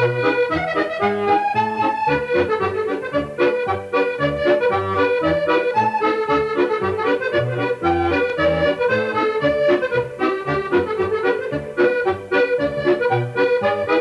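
Accordion playing a tune, the melody running in short notes over a steady, regular bass beat.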